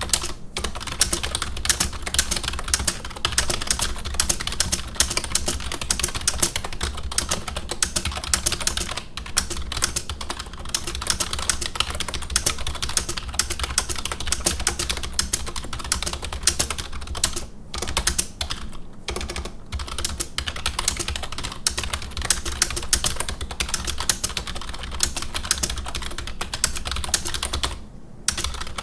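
IBM KB-8923 rubber dome keyboard typed on fast and without let-up in a speed test: a dense clatter of key presses with a few short breaks, pretty loud for a rubber dome board.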